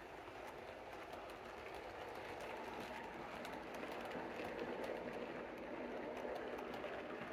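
Model railway coaches rolling past on OO gauge track: a steady rumble of small wheels on rail, with light clicks scattered through it. It grows a little louder through the middle of the pass.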